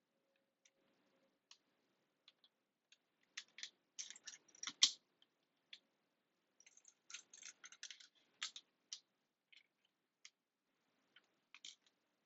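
Small plastic LEGO pieces clicking and clattering against each other and the desk as they are sorted by hand, in irregular bursts. The clicking is densest about four to five seconds in and again around seven to eight seconds, with sparse ticks in between.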